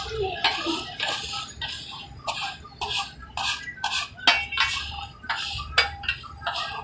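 Flat metal spatula scraping and slapping across a large flat tawa griddle, about two strokes a second, with a few sharp metal-on-metal clinks, as the liver masala is spread and turned.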